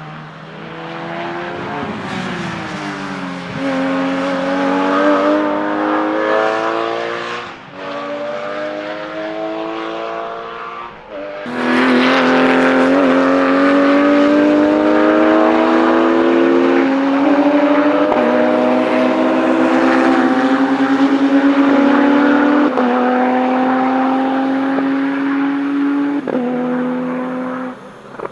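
Porsche 911 Supercup race car's flat-six engine accelerating hard through the gears. Its pitch climbs steadily and drops sharply at each upshift, about half a dozen times, and it gets much louder about halfway through.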